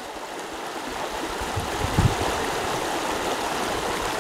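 Creek water rushing steadily at a low-water culvert bridge, with a brief low bump about two seconds in.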